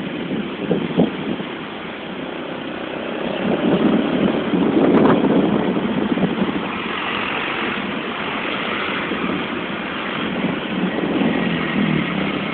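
Engine and road noise of vehicles on the move, swelling about four seconds in and then holding steady.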